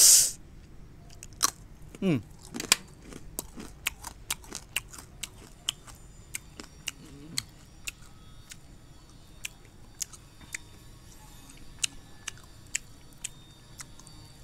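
Brittle dalgona honeycomb sugar candy being bitten and chewed: many sharp, irregular crunches and cracks, with a brief loud burst at the very start.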